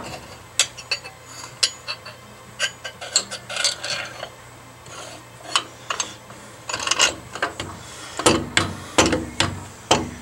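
Metal clinks, taps and scrapes as a treadmill motor is handled and fitted against its steel mounting bracket, with a cluster of louder knocks near the end.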